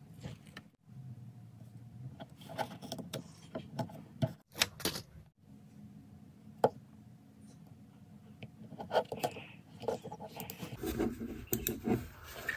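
Small handling noises, scattered quiet rustles, taps and a few sharper clicks, as adhesive grip tape is peeled from its backing and pressed onto the sides of a plastic honeycomb-shell gaming mouse.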